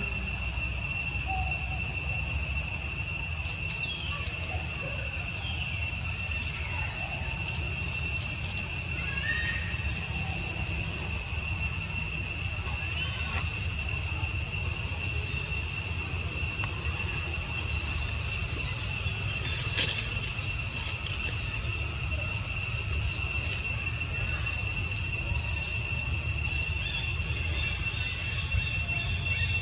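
Steady chorus of insects, a continuous high-pitched drone at a few fixed pitches, over a low rumble. There is a single sharp click about two-thirds of the way through.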